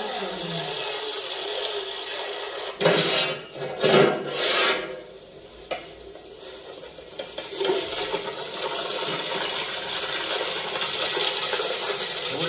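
Soaked rice being handled in a large aluminium pot: water pours off the rice, and the wet grains slide and rasp against the metal as the pot is tipped, with a few louder scrapes about three to five seconds in.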